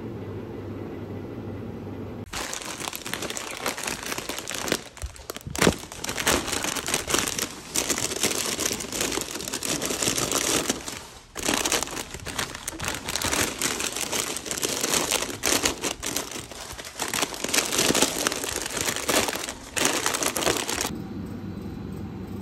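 Plastic crisp packets crinkling as they are handled and pushed into a vending machine's spiral coils. The dense crinkling starts about two seconds in and stops shortly before the end, with a sharp click early in the crinkling.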